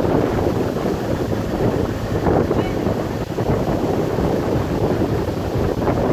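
Wind buffeting a phone's microphone over open water, a steady rushing rumble, with the wash of water beneath it.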